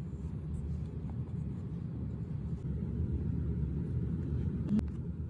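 Steady low background rumble, with a couple of faint clicks near the end.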